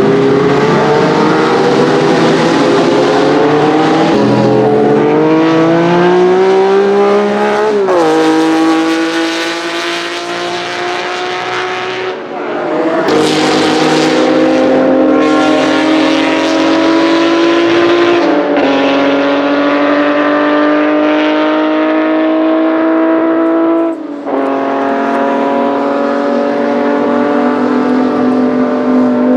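Racing car engine at full throttle, its pitch climbing steadily through each gear and dropping sharply at four upshifts spaced about five seconds apart.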